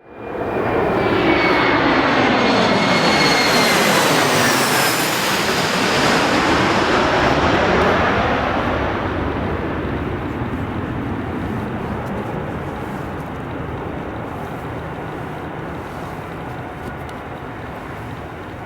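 Embraer E175's twin GE CF34 turbofans on an arriving pass-by, a rushing jet noise with a high whine that falls in pitch as the aircraft goes past. Loudest in the first eight seconds, then fading away.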